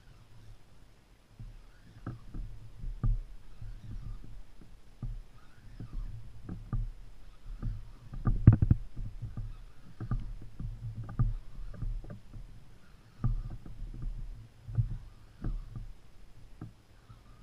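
Irregular low knocks and rumbles of water slapping against a plastic fishing kayak's hull, carried through a camera mounted on the kayak, with the loudest knock about eight and a half seconds in.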